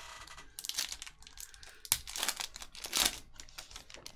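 Foil wrapper of a Panini Select trading-card pack being torn open and crinkled, a run of crackling rips with a sharp snap about two seconds in.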